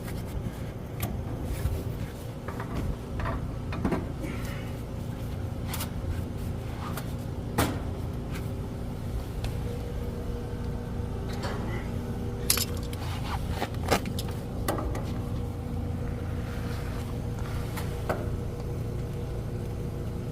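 An engine runs steadily with a low hum behind scattered clicks, clinks and knocks of tools and metal parts being handled.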